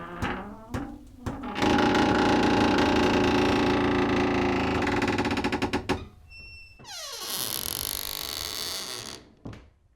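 Old door hinges creaking as a door is swung slowly: a few short squeaks, then a long loud grinding creak with a fast stuttering rasp for about four seconds. After a pause comes a squeal that falls in pitch, then a higher, thinner squeak, and a brief squeak near the end.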